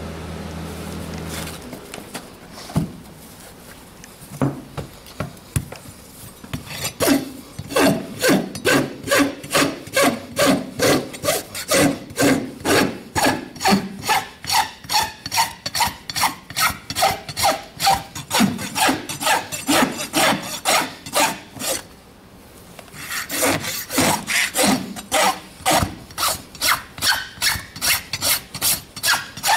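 Farrier's steel rasp drawn back and forth across a horse's hoof wall, in steady rhythmic strokes about two a second. The strokes start a few seconds in and stop briefly about two-thirds of the way through before resuming.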